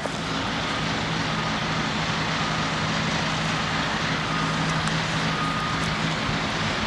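Engine running steadily with a low hum under a loud, even rushing noise, which starts suddenly.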